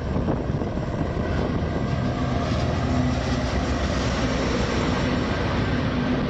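Union Pacific diesel-electric freight locomotives passing close by, their engines running with a steady low drone under the noise of the moving train.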